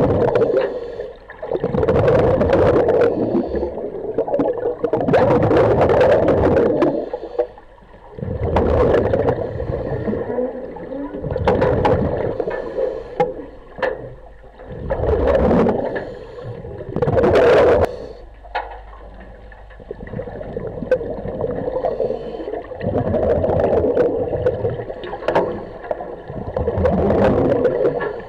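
Underwater breathing through a diver's regulator: exhaled bubbles gurgling and rushing in repeated bursts a couple of seconds apart, with quieter gaps between breaths.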